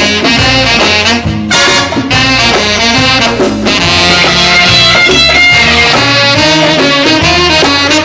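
Instrumental break of a 1980s Hindi film song: full band music led by a brass section, with no singing.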